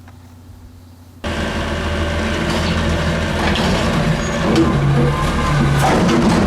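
Electronic truck-engine sound effect from a toy garbage truck, cutting in abruptly about a second in and running on as a steady, noisy engine rumble.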